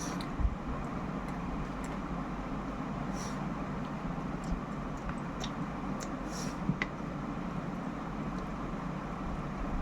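A person eating: scattered small clicks and smacks of chewing over a steady background hum.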